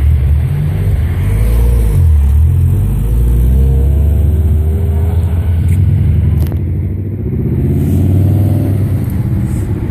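Cars accelerating away past close by, a loud low engine note rising in pitch several times as the revs build.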